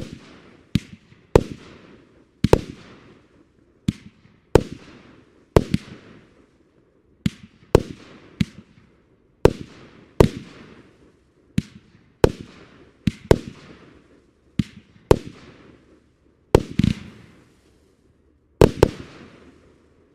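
Dahlia fireworks bursting in a rapid run of sharp bangs, each trailing off quickly, about one or two a second, stopping near the end.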